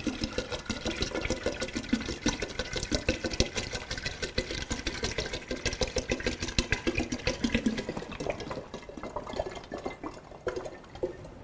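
Water glugging out of an upturned plastic bottle into the bunghole of a 6-litre oak vinegar cask, topping up the water to test the cask for a leak. The glugging thins out near the end as the bottle is righted.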